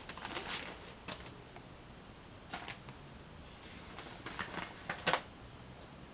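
Soft rustling of paper sheets being handled, coming as a handful of short scratchy rustles with brief quiet gaps between them.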